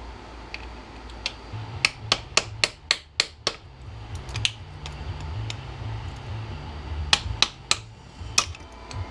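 Sharp taps and knocks on a cast aluminum drill housing, striking to drive the small bushings out of it: a quick run of about half a dozen, then a few more near the end, over a low hum.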